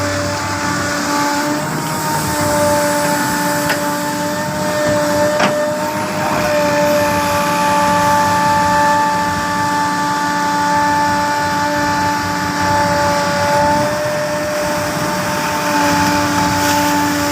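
Backhoe excavator running steadily, its engine and hydraulics giving a steady hum, with a couple of sharp clicks about four and five and a half seconds in.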